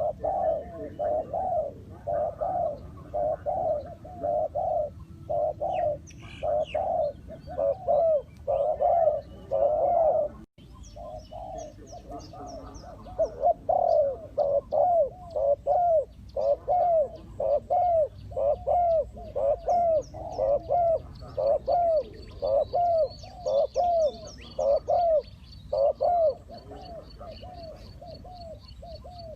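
Spotted doves cooing: a long run of repeated arched coo notes, one or two a second, breaking off briefly about ten seconds in. Smaller birds chirp faintly in the background.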